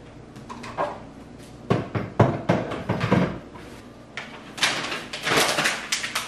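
A wooden kitchen cabinet door pushed shut, with several sharp knocks about two seconds in. Then paper packaging rustles as it is handled, through the last couple of seconds.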